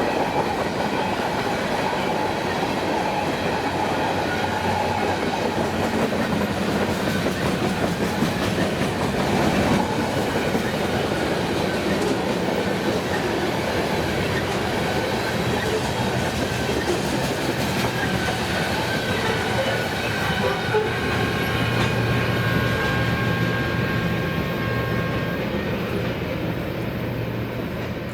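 Freight train rolling past, its wheels clattering steadily over the rails. A faint steady high whine joins in for a few seconds in the second half.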